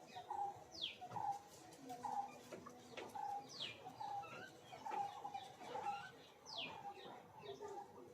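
Several birds calling: one bird repeats a short mid-pitched note over and over, while another gives a high whistle that slides quickly downward about every three seconds.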